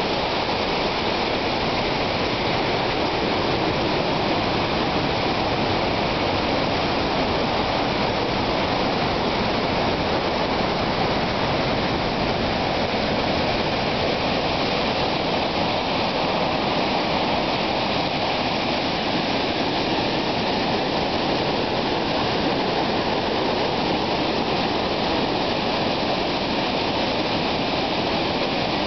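Large waterfall in flood, swollen with thunderstorm runoff into a torrent: a steady, loud rush of falling water that does not let up.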